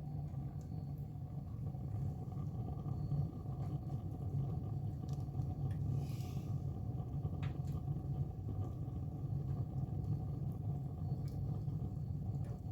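Wood fire burning in a fireplace: a steady low rumble of flames with scattered faint crackles and a brief hiss about six seconds in.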